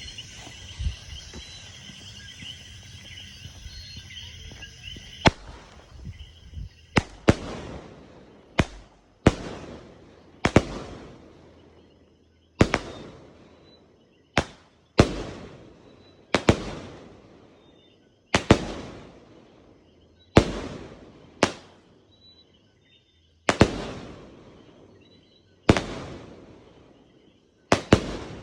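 A "Game Over" firework firing a series of loud shots, about sixteen, spaced one to two seconds apart, each trailing off over a second or so. Before the first shot, about five seconds of steady hissing.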